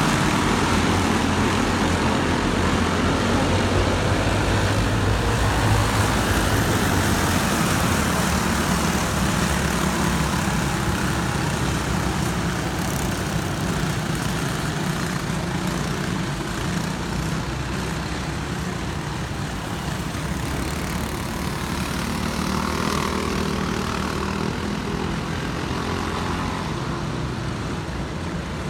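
Racing go-kart engines running hard around a track in a continuous buzz, their pitch shifting as karts speed up and slow down. The sound slowly fades toward the end.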